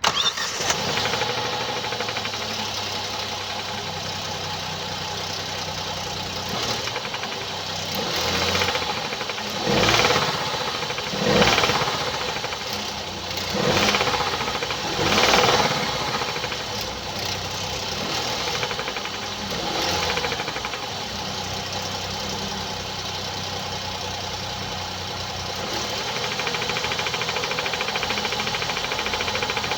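A 2017 Hyundai i30's 2.0-litre G3LS four-cylinder petrol engine starts, then runs with a knocking, ticking clatter. It is revved briefly several times in the middle. The seller puts the noise down to defective hydraulic lifters.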